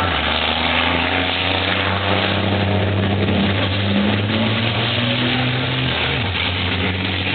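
Turbo-diesel engines of racing trucks passing through a chicane: a loud low engine drone whose pitch shifts up and down as the trucks come off the throttle and pull away.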